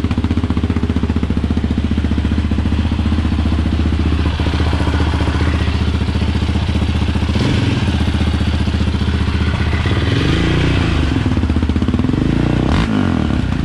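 2020 Yamaha Raptor 700's single-cylinder four-stroke engine running through a newly installed Yoshimura RS2 exhaust. It idles steadily, then is revved twice with quick throttle blips that rise and fall in pitch, about ten seconds in and again near the end.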